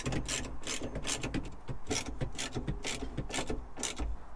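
Ratchet spanner clicking in short strokes, about two or three clicks a second, as the bolts of the auto-steer screen mount are tightened onto the tractor cab's door handle; the clicking stops near the end.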